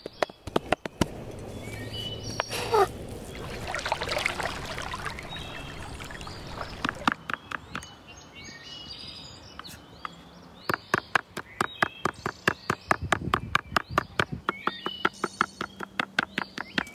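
Knife blades chopping raw beef into mince on a wooden cutting board: fast runs of sharp strikes, about five a second, pausing for several seconds about a second in. Birds chirp in the background.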